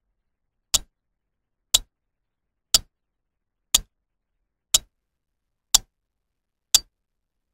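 Ticking-clock sound effect: one sharp tick a second, with silence between, seven ticks in all.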